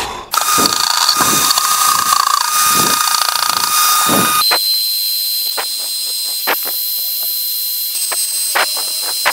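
A power drill spinning a brazed diamond core bit, grinding into hard polished porcelain tile: a steady whine over gritty grinding. About four seconds in the grinding eases to a steadier whine, broken by a few sharp clicks.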